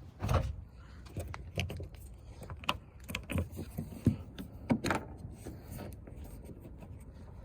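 Irregular clicks, knocks and rattles of the Fiat 500's door-handle parts being worked and wiggled as the broken handle hinge is freed and pulled out.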